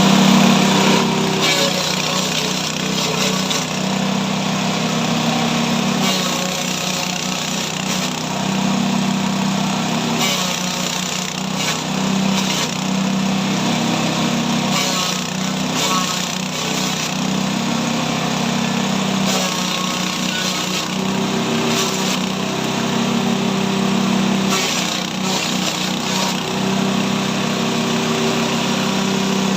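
A multifunction forage chopper machine running with a steady low mechanical hum, broken by irregular brief bursts of louder, rougher noise.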